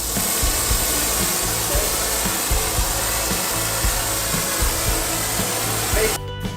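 Lit soldering torch flame hissing steadily, cutting off abruptly about six seconds in, over background music.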